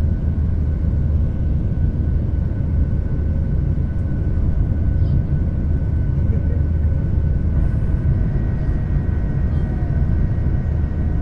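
Cabin noise of a Boeing 737-700 climbing out just after takeoff: a steady, loud rumble from the CFM56-7B engines and the airflow, with a thin steady whine over it.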